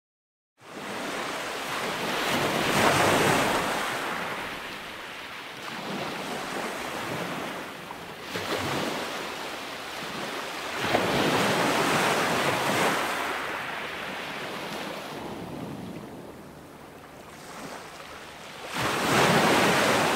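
Sea waves breaking against the rocky shore of a seawall, surging and fading in long swells every few seconds. It cuts in abruptly about half a second in.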